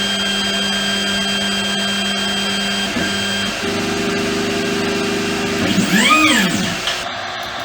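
3D printer stepper motors whining at a steady pitch as they move, changing to a different note about three and a half seconds in, then sweeping up and back down in pitch around six seconds before stopping near the end.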